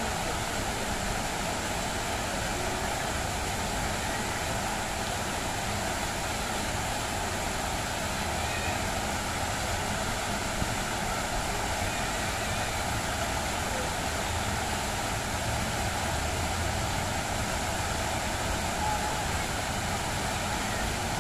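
Many fountain jets splashing steadily into a basin: a constant rush of falling water.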